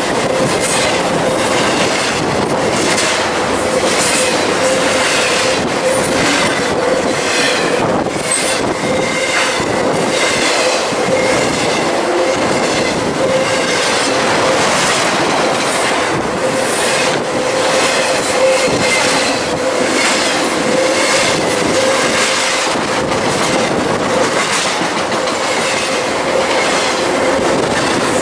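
Intermodal freight train passing close by, its cars loaded with highway trailers and containers: a continuous rush of steel wheels on rail with a regular clickety-clack of wheels over rail joints and a steady ringing wheel tone.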